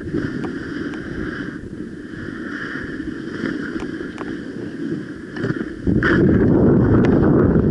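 Skis sliding and scraping over packed snow on a downhill run, with wind rushing over the camera microphone. It gets louder about six seconds in.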